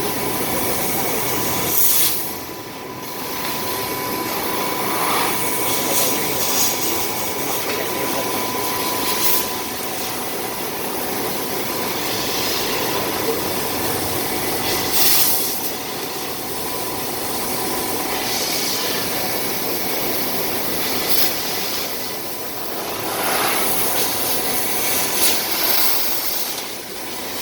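1500 W CNC fiber laser cutting machine running: a steady hiss with a faint steady whine, broken by brief louder hisses every few seconds.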